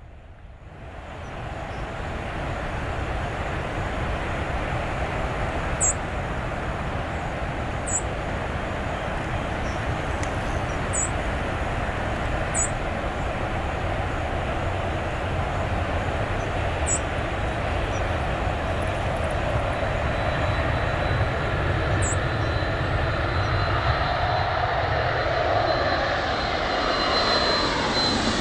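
Jet aircraft engines running at high power: a steady jet noise that swells in over the first couple of seconds and holds. A thin high whine comes in during the second half, and the pitch falls near the end as the aircraft passes.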